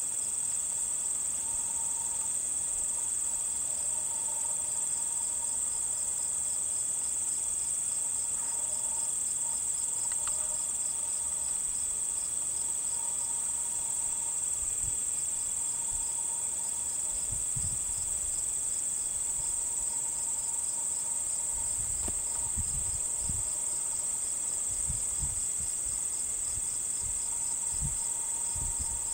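Insects trilling without a break in a high, continuous drone, with a fainter, evenly pulsing chirp beneath it. A few low rumbles on the microphone come in over the second half.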